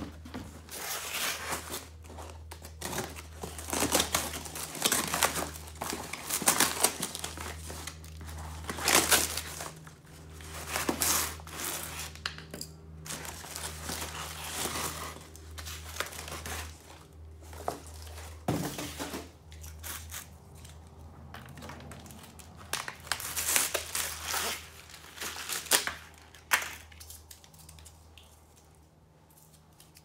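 Cardboard box being torn open and plastic wrap crinkling as packed parts are pulled out, in irregular bursts of tearing and rustling over a steady low hum.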